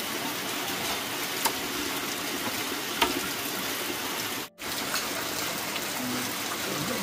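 Steady rain falling, an even hiss with a couple of sharp ticks; the sound drops out for an instant about four and a half seconds in.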